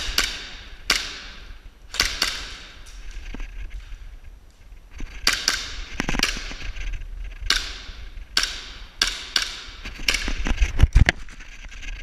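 Airsoft guns firing single shots in an exchange: a dozen or more sharp cracks at irregular intervals, each followed by a short echo, with a few low thumps near the end.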